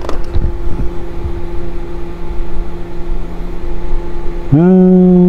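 A click as the main flight battery is connected to the RC helicopter's ESC, then only a steady low electrical hum: no ESC start-up beeps and no motor movement, so the ESC and motor are not responding. About four and a half seconds in, a loud held low humming tone starts and runs to the end.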